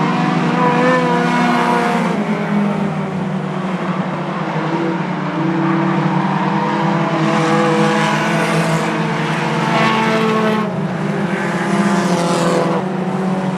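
A pack of four-cylinder short-track race cars running at speed, several engines sounding at once, their pitch rising and falling as the cars accelerate and pass.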